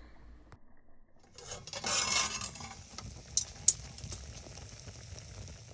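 A metal utensil scraping and stirring in a pan of elk heart cooking on a camp stove, with a few sharp clinks about three and a half to four seconds in, over a steady hiss.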